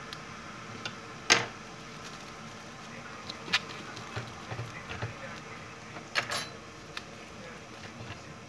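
Plastic cling film crinkling and rustling as it is pulled and pressed around a sandwich, in a string of short, sharp crackles. The loudest come a little over a second in and again around six seconds in.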